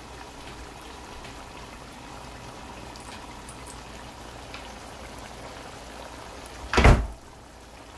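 Pot of fish curry in coconut milk bubbling at a boil, a steady simmering crackle with small pops. About seven seconds in, a single short loud thump.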